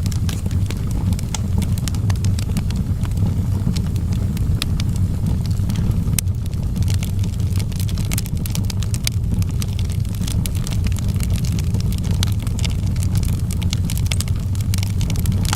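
Wood fire burning in a fireplace, crackling with frequent irregular sharp pops over a steady low rumble of the flames.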